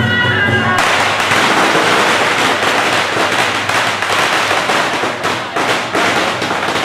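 A string of firecrackers going off in a loud, dense, continuous crackle of pops. It starts abruptly about a second in, cutting off a few notes of music.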